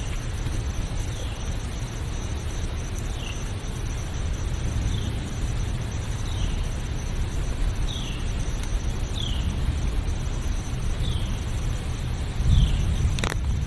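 Forest ambience: a steady low rumble under a constant high insect drone, with a bird repeating a short falling chirp about every second and a half. A sharp click sounds near the end.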